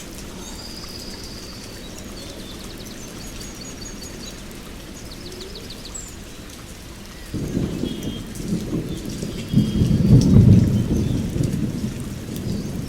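Steady rain falling on forest foliage, with birds chirping and trilling over it. About seven seconds in, a low rumble of thunder starts, builds, and is loudest a few seconds later.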